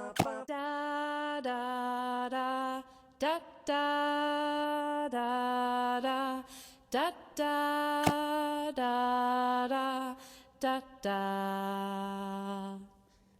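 A voice singing a slow melody of long held notes, each about a second, with short breaks between them; the last note is lower and held longest, ending near the end.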